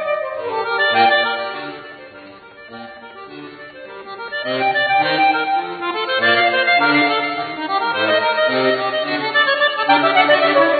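Chromatic button accordion playing a melody in chords over low bass notes. It falls soft about two seconds in and swells back up from about four and a half seconds.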